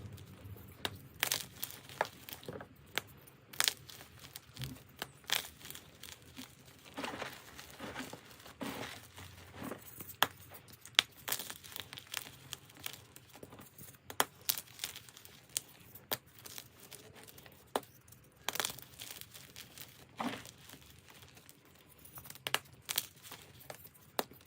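Dyed gym chalk being crushed and crumbled: irregular crisp crunches, some much louder than others, with a soft powdery rustle in between.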